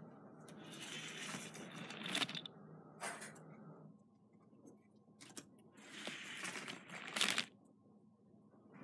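A Hot Wheels die-cast toy car rolling down a paper track, twice: each run is a rolling rush that grows louder and ends in a sharp clack. A single click falls between the two runs.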